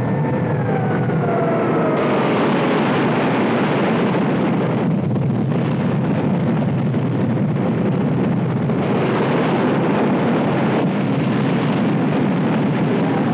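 Missile launch sound effect: a dense, steady rocket-exhaust roar that sets in about two seconds in. Before it, a few tones slide downward.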